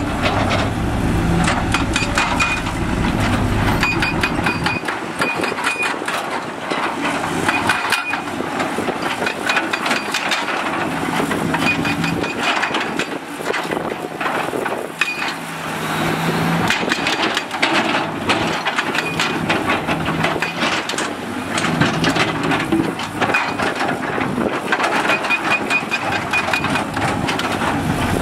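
Heavy construction machinery at work: a diesel engine running, with many knocks and clatters of rock and metal, and a high repeated beeping in short runs several times.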